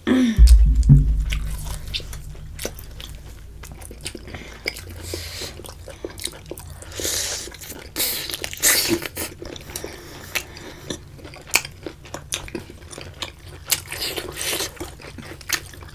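Close-miked eating of boiled octopus tentacle: wet biting and chewing with many small clicks and smacks. A loud low thump comes just after the start.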